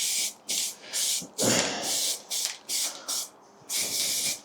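Aerosol spray can of etching primer hissing in a rapid series of short bursts as a bicycle frame is given its first coat.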